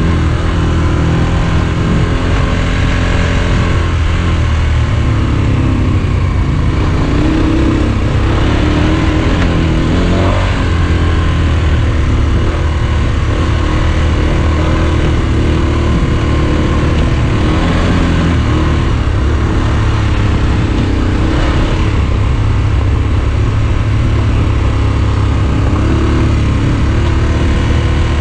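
Motorcycle engine running steadily under way on a dirt road, heard from on board the bike, with the engine note rising and falling slightly a few times.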